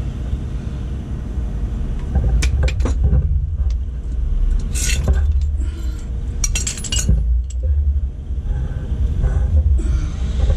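Metal hand tools clinking against the engine's coolant fittings, a wrench among them, in short clusters about two, five and seven seconds in, over a steady low rumble.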